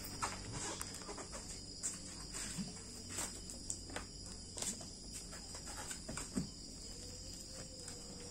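Crickets chirping steadily, with scattered soft knocks and rustles of plastic-wrapped packages being handled and stacked into a car's cargo area.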